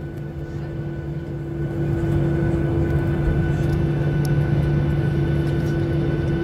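Boeing 737-800's CFM56-7B jet engines heard from inside the passenger cabin while taxiing: a steady hum with several steady whining tones, growing louder about two seconds in.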